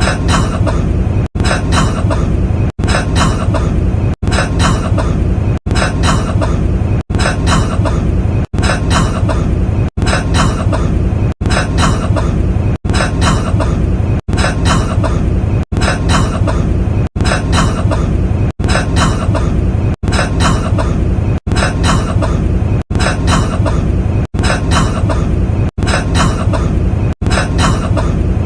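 A man's short burst of coughing, one recorded clip looped over and over. It repeats about every second and a half, with a brief cut between repeats and a steady low rumble under the coughs.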